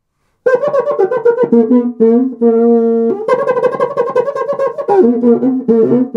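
An 8-inch aluminium cuica with a synthetic head, the Brazilian friction drum, played by rubbing the stick fixed to the underside of its head. It gives squeaky, voice-like tones that jump between a high note and one about an octave lower, in quick rhythmic strokes, with the pitch bent by fingers pressing on the head.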